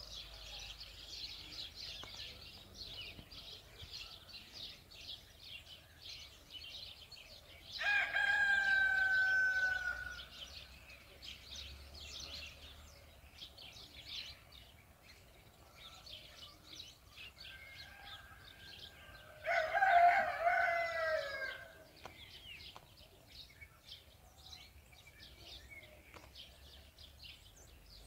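Two loud, drawn-out fowl calls, each about two seconds long and falling slightly in pitch at the end, a little over ten seconds apart, with a fainter call just before the second. Small birds chirp steadily throughout.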